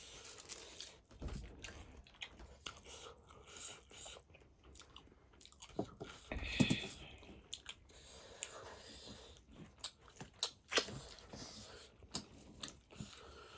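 Close-up chewing and biting of pork feet: wet smacks and irregular crunches and clicks from gnawing skin and cartilage off the bone, with a louder cluster about six and a half seconds in.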